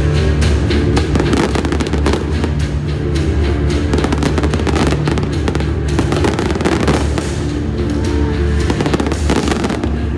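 Aerial firework shells bursting and crackling in quick succession, a dense run of sharp bangs, over loud music with sustained low notes.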